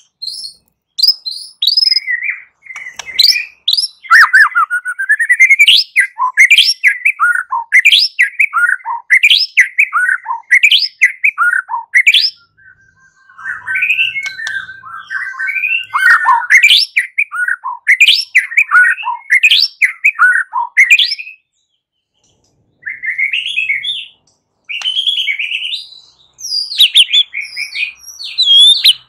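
White-rumped shama (murai batu) singing a fast, varied fighting-style song of whistles and chattering phrases, broken by a few short pauses. It holds one steady whistle about halfway through.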